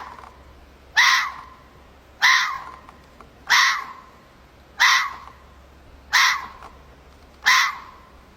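An animal's short, harsh, caw-like call, repeated evenly about every 1.3 seconds.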